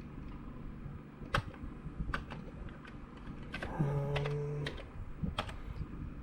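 Commodore 64 keyboard keys pressed one at a time while a message is typed in, slow and irregular, about one or two keystrokes a second. About four seconds in, a short low hum, like a voice humming, sounds for just under a second.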